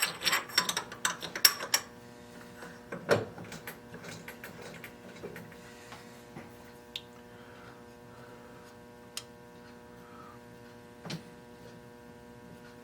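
Metal clinks and knocks as lathe collets are handled, busy for the first few seconds, then a few single clicks, over a steady electrical hum.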